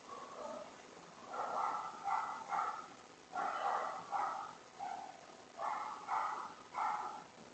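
A dog barking, about ten barks in runs of two or three with short pauses between.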